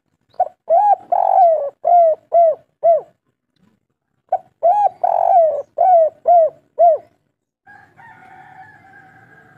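Spotted dove cooing two full phrases. Each opens with a short note and two longer drawn coos and ends in three short quick 'kuk' notes, the three-note ending that dove keepers call 'kuk 3'. Near the end comes a fainter, steadier drawn-out sound.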